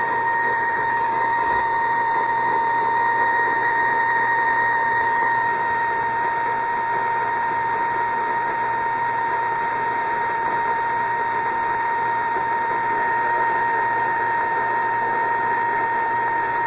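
Vintage Cariole six-band transistor radio's speaker giving a steady, unwavering whistle tone over a hiss of static, picked up while tuned across the air and weather bands.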